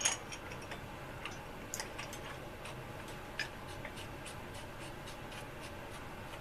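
Scattered light ticks and clicks of small parts and pieces being handled during assembly, one slightly sharper click at the start and a few more spread through.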